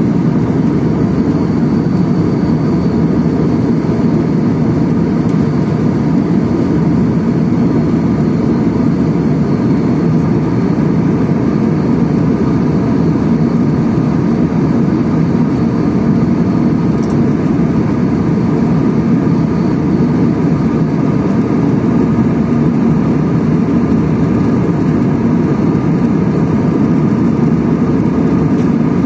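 Steady cabin noise of an Airbus A320 airliner in cruise: an even, deep rush of engines and airflow that does not change.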